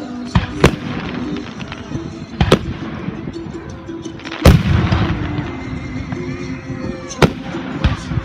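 Aerial fireworks bursting: six sharp bangs, the loudest about halfway through, with crackling between them.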